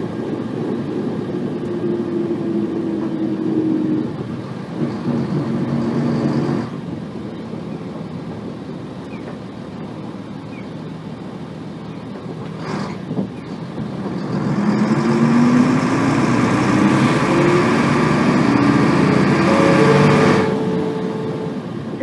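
Nissan Diesel bus's FE6 inline-six diesel engine, heard from inside the cabin, pulling and revving up with a rising pitch that falls away about 7 seconds in. After some quieter steady running and a single click, it climbs again, louder and with a whining edge, from about 15 to 20 seconds. The uploader flags this bus as a noisy one that tends to over-rev, with gear whine from the transmission.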